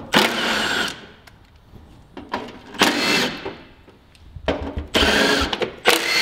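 Compact Milwaukee M12 Fuel cordless impact tool running in about four short bursts, backing out the bolts that hold a truck's fender and fender liner.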